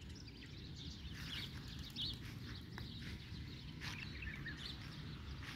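Small birds chirping now and then in short high notes over a low steady rumble.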